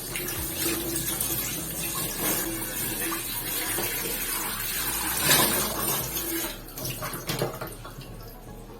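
Kitchen tap running through a swivel tap-extension aerator nozzle while a plate is washed under it in the sink, a steady splashing stream of water. There is a brief knock about five seconds in, and the water fades off near the end.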